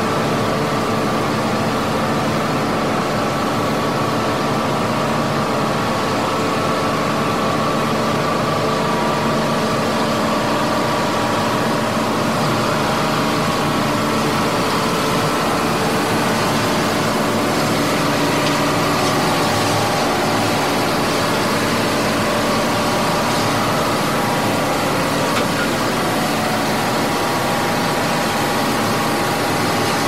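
Mining-site ambience of heavy machinery running: a steady, unbroken drone of engine noise with several held hums layered over it.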